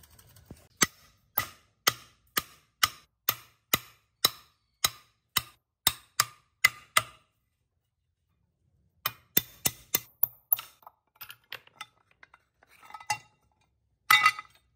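Hammer knocking on a steel tube: about two sharp metallic knocks a second for several seconds, then a pause, then a quicker, uneven run of lighter taps and clinks near the end.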